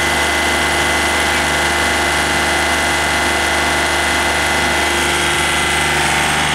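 Yanmar 393T tractor's 39-horsepower diesel engine running steadily, an even mechanical hum with no change in speed.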